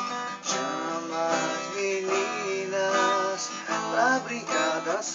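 Instrumental passage of a forró song: strummed acoustic guitar with a melody line over it, and no singing.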